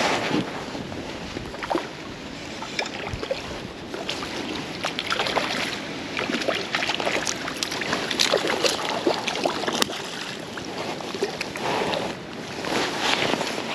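Water splashing and trickling, with irregular small splashes over a steady rush, mixed with some wind noise.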